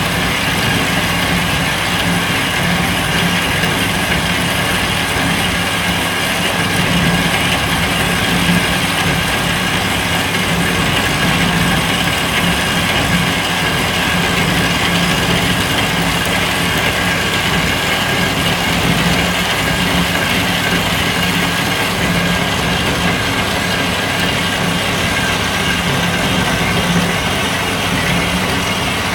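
Bandsaw running steadily as it cuts through 40 mm 4140 steel round bar: a constant motor hum with the blade's even grinding.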